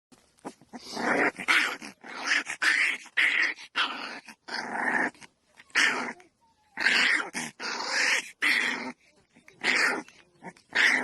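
A dog growling in a rapid series of short bursts, with a brief pause about six seconds in.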